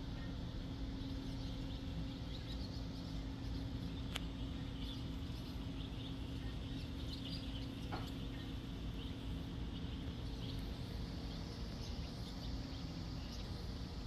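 Outdoor garden ambience: a steady low rumble and hum, with scattered faint high chirps of small birds and a single sharp click about four seconds in.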